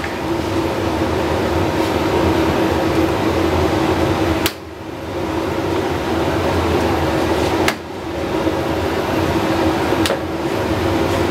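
Steady mechanical drone with a constant low hum, like a fan or engine running, broken by three brief sudden drops in level.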